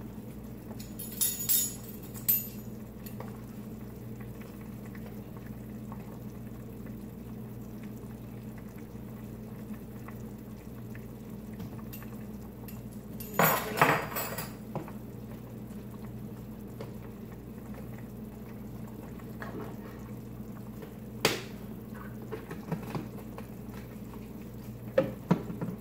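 Scattered clinks and clatter of kitchen utensils, a metal measuring spoon knocking against a spice jar and mixing bowl, with the loudest clatter about halfway through and a sharp click later on, over a steady low hum.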